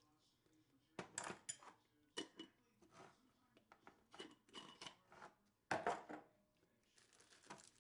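Faint, scattered clinks and taps of a utensil against a jar and bowl, in small clusters of short sounds, as canned jalapeño peppers are spooned into a bowl of black-eyed peas.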